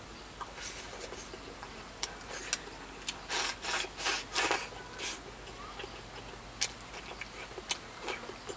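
A person eating spicy hot pot and rice in broth from a bowl with chopsticks, shovelling in mouthfuls: irregular short slurping and chewing noises, with a few sharp clicks.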